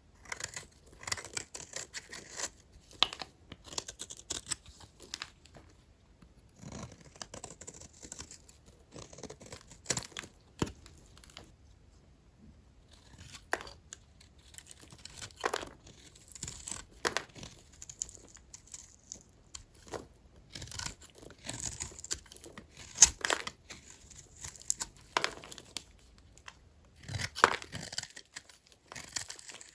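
Knife cutting through dry, old bars of hotel soap: irregular crisp crackles and scrapes as the blade slices and the brittle soap breaks, with a couple of short pauses.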